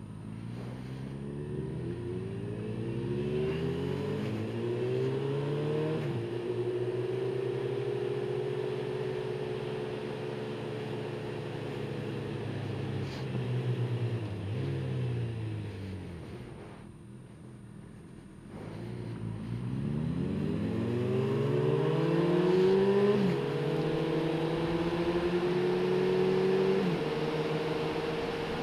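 Motorcycle engine accelerating up through the gears, its pitch climbing and dropping back at each shift, then holding a steady cruise. About halfway it slows almost to idle, then pulls away again through two more shifts.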